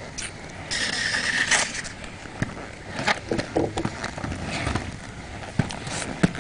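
Inline skates on a concrete sidewalk: a loud scrape of the wheels lasting about a second, followed by several sharp clacks and knocks of the skates hitting the pavement.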